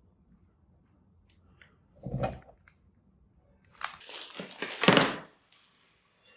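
Household handling noises: a few light clicks, a soft thump about two seconds in, then a louder crinkling rustle lasting about a second and a half.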